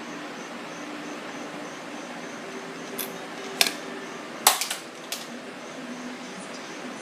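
A few sharp clicks or small knocks, about three and a half, four and a half (a quick cluster there) and five seconds in, over a steady background hiss and faint hum.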